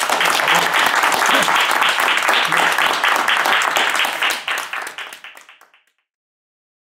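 Audience applauding with dense clapping, which fades away about five seconds in.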